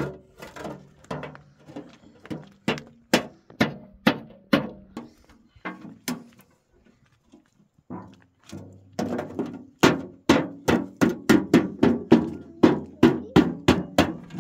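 Repeated hammer blows, about two a second, that pause for a few seconds past the middle and then come faster, about three a second.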